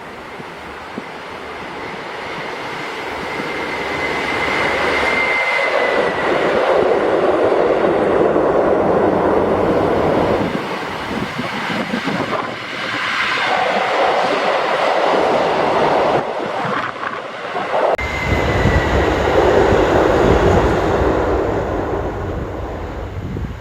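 A train running past on the track, getting louder over the first few seconds and staying loud. About eighteen seconds in the sound changes abruptly and a low rumble joins it.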